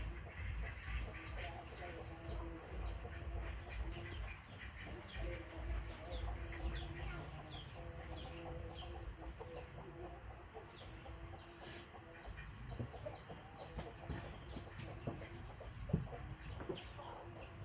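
Bird calls: many short, high chirps, each falling in pitch, a few a second, over a low rumble.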